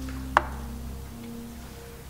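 Background music with sustained low notes that change about a second in, and a single sharp click about a third of a second in.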